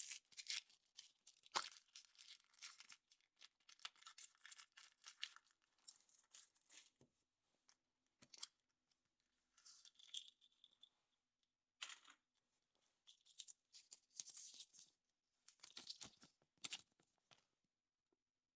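Thin wrapper foil crinkling and tearing in several bursts with short pauses between them, with a few sharp clicks, as a foil-wrapped chocolate surprise egg is unwrapped by hand.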